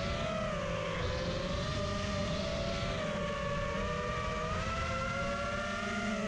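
FPV quadcopter's motors whining, the pitch wavering up and down as the throttle changes.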